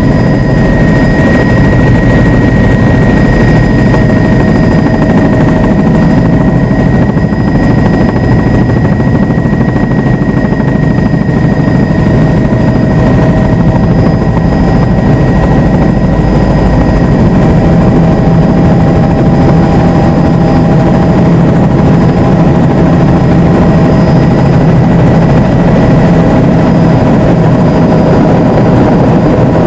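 Helicopter in steady flight, heard from inside the cabin: a loud, unchanging low drone of engine and rotor with several steady whining tones above it.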